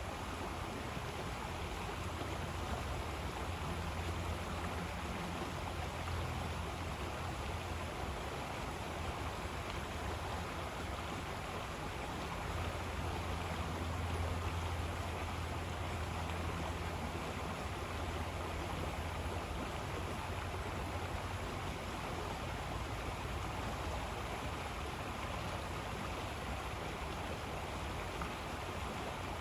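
River water flowing steadily: an even rush with a low rumble underneath that swells and eases.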